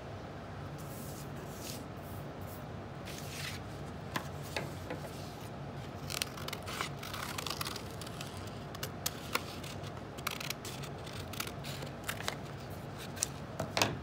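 Scissors snipping through construction paper, with the rustle of paper being handled and shifted. The snips come irregularly, in a quick run about six to eight seconds in, with a sharper click near the end.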